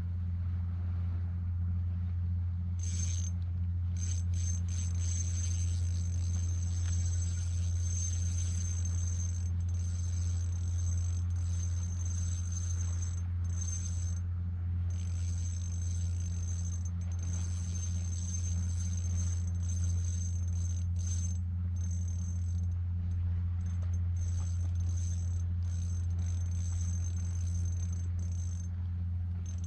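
A steady low mechanical hum, like an idling engine, with no change in pitch. A thin high-pitched tone comes in about three seconds in and drops out briefly now and then.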